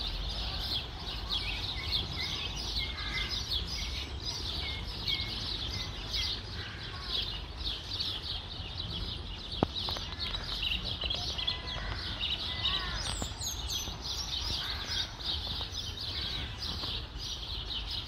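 Many birds chirping and twittering together in a continuous chatter, with a few high descending whistles about thirteen seconds in. A single sharp click comes about ten seconds in, over a low background rumble.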